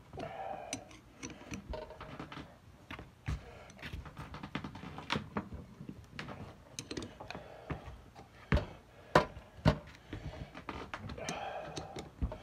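Irregular metallic clicks and knocks from a wrench working on the bolts of a Caterpillar Sixty oil pump's bottom plate as they are tightened, with a few sharper knocks about two-thirds of the way through.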